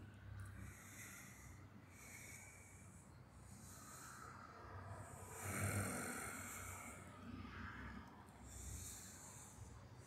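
A person breathing audibly, about five slow, breathy hisses roughly two seconds apart.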